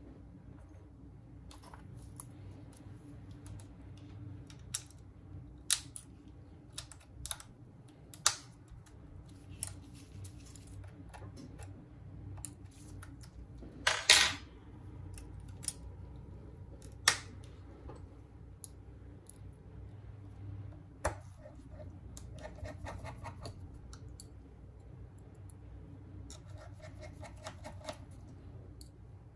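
Small tools and phone parts clicking and tapping on a workbench during a smartphone teardown. Scattered sharp clicks, the loudest about halfway through, and two short stretches of fast rasping clicks near the end.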